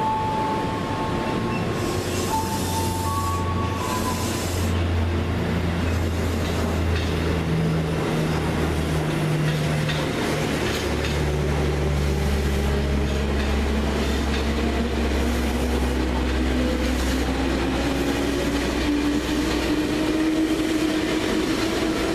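Electric commuter trains running past on curved track: a continuous deep rumble of wheels on rails, with steady high tones in the first few seconds. Through the second half a motor whine rises slowly in pitch as an ex-Japan Railway 205 series electric train picks up speed.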